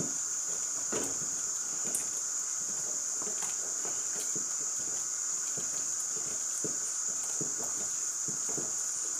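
Wooden spoon stirring thick maize-flour porridge (ugali) in a steel pot, with a run of soft, irregular knocks and scrapes as the flour is worked into the boiling water. A steady high hiss runs underneath throughout.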